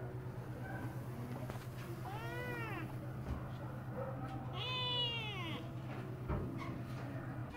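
Kitten meowing twice from inside a pet carrier, each meow rising and then falling in pitch, the second louder. A steady low hum runs underneath.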